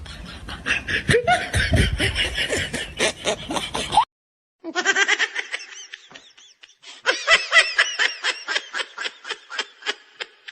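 People laughing in quick runs of short laughs. The laughter cuts off about four seconds in and starts again about half a second later.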